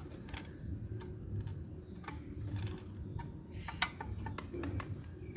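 Scattered light clicks and ticks of a screwdriver working the screws at a car amplifier's RCA input panel, over a low steady hum.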